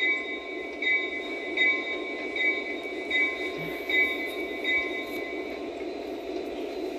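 Lionel SD70ACe model locomotive's onboard sound system playing its diesel bell, ringing about once every 0.8 seconds over a steady idling diesel engine sound. The bell stops about five and a half seconds in, while the engine idle carries on.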